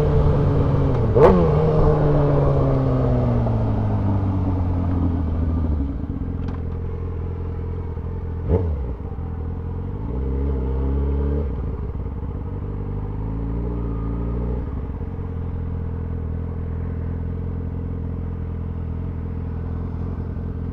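2003 Yamaha R6's inline-four engine winding down in pitch over the first six seconds, then idling steadily. The revs lift briefly about ten seconds in, and a couple of sharp clicks are heard.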